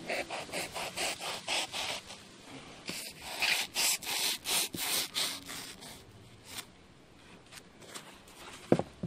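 Knife sawing through motorcycle-seat foam padding in repeated rasping strokes, about three a second, loudest in the middle. A single sharp knock near the end.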